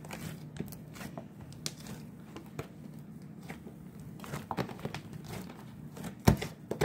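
Sticky homemade glue slime being worked by hand, giving scattered small crackles and squishes, with a couple of sharp knocks near the end that are the loudest sounds.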